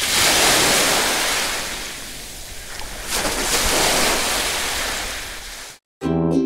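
Sea waves washing in as surf, swelling twice, then cutting off abruptly; a short keyboard tune starts near the end.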